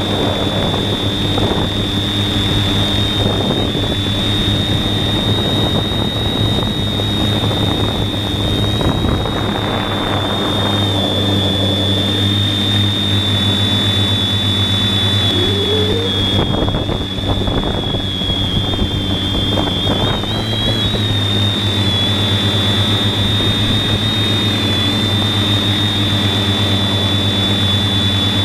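Quadcopter's brushless motors and 15-inch propellers running in flight, heard from a camera mounted on the craft: a steady high whine that wavers slightly in pitch over a low hum from the props.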